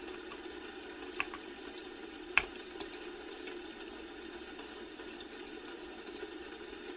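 A steady low background hum with a few sparse computer keyboard key clicks rather than continuous typing. Two clicks stand out, one just over a second in and a louder one about two and a half seconds in.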